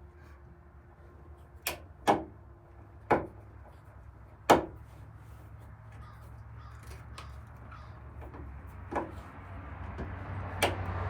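Sharp knocks and clicks of a metal hinge and screws being worked on a wooden cupboard with hand tools: a few close together in the first half, then two more near the end. Underneath, a low rumble grows steadily louder in the last few seconds.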